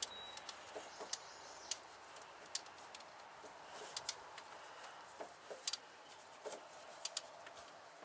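Light, irregular clicks and taps of hand tools and parts on metal as a part is fitted and tightened by hand, over a faint steady hiss.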